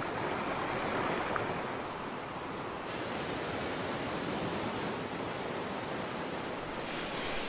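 Steady rushing of whitewater river rapids, with no distinct events; the hiss changes slightly about three seconds in.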